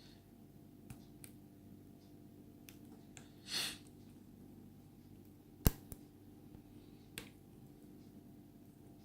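Lock pick and tension wrench working the pins of an Abus 72/40 brass padlock: faint scattered ticks and clicks, a brief scratchy rustle about three and a half seconds in, and one sharp loud click a little past halfway.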